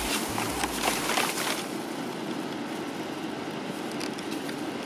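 Clear plastic bag rustling and crinkling as hands dig through it, busiest in the first second and a half, over a steady background hum.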